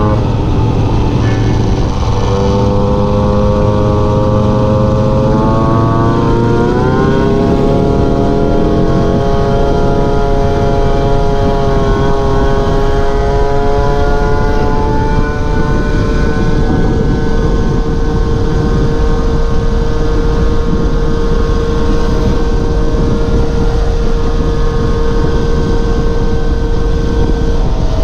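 A moped's small two-stroke engine running at speed under the rider, its pitch climbing about a quarter of the way in and then holding steady in a high, even drone. Wind rush on the microphone runs underneath.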